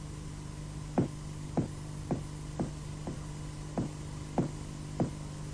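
Footsteps, about two steps a second, each a short knock, over a low steady hum.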